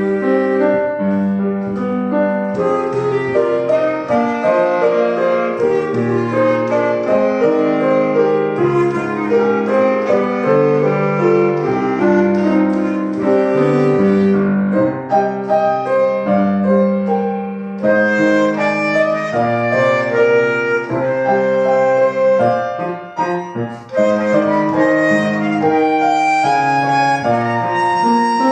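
A solo wind instrument plays a held melody over piano accompaniment. The music briefly thins out about 23 seconds in before resuming.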